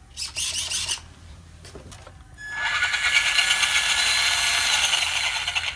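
Electric drive motor of a Traxxas Slash 2WD RC short-course truck spinning the wheels off the ground under throttle from the transmitter. A short burst comes just after the start, then about two and a half seconds in the motor spins up and runs steadily with a high whine.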